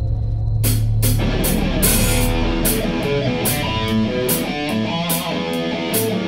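Hard rock band playing live: electric guitar, bass and drum kit. A low droning intro gives way about half a second in to the full band, with the drums keeping a steady beat and cymbals crashing over distorted guitar and bass lines.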